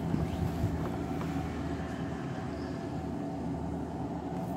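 Steady low mechanical hum like a running engine, with a few light clicks in the first second.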